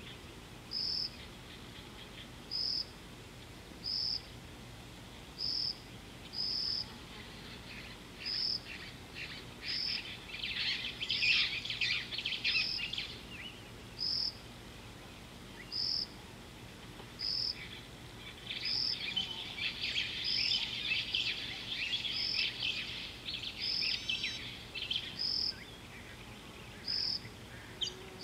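Outdoor bush ambience: a short high chirp repeated steadily about every one and a half seconds, joined twice by a stretch of busier bird song, first about eight seconds in and again from about eighteen seconds.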